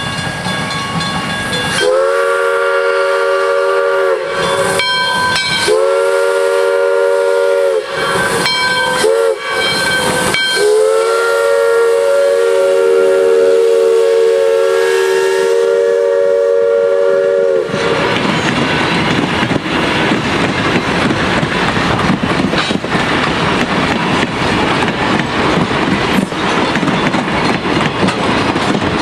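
Steam locomotive's three-chime whistle blowing two long blasts, a short one, then a long held blast, the grade-crossing signal. After it cuts off, the train's cars roll past close by, their wheels clicking over the rail joints.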